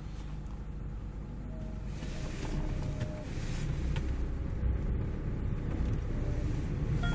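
Kia Bongo 3 truck's diesel engine and road noise heard from inside the cab while driving, slowly getting louder as the truck pulls away.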